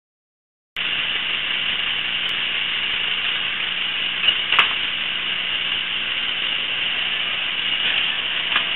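Steady thin hiss of a security camera's built-in microphone, a low-quality recording with a faint hum under it, starting abruptly under a second in. A couple of brief faint sounds come through about four and a half seconds in.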